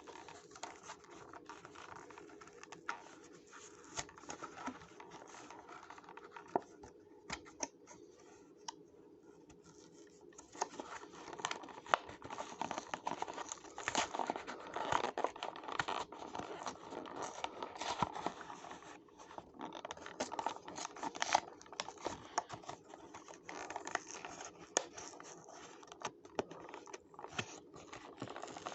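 Hands tearing, scratching and crinkling at the packaging of a Matchbox die-cast toy car to get it out, with scattered clicks and scrapes. It is sparse at first and grows busier and louder from about a third of the way in.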